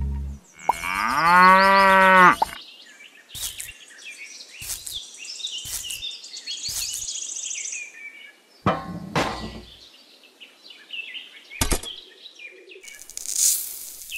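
A cow moos once, about a second in, for under two seconds. Afterwards come scattered high chirps and light clicks and taps, and near the end a brief hissing rush.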